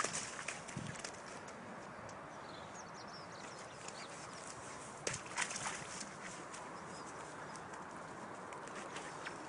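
Open-air ambience with faint, short bird chirps and a few brief scuffs, like footsteps on the ground, about five seconds in.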